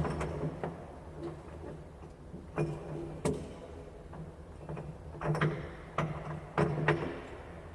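Ratchet strap hardware being handled: irregular sharp metallic clicks and knocks, two a little before the middle and a quicker run of several toward the end, over a steady low hum.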